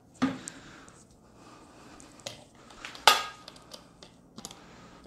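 Kitchen clatter: a utensil set down with a clack, then the glass lid of a slow cooker set onto the crock with a sharp clack, the loudest knock about three seconds in, among a few lighter clicks.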